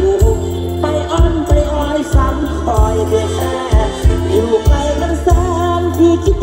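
Live Isan mor lam band music with a heavy bass line, a steady kick-drum beat about twice a second and a melody line over it.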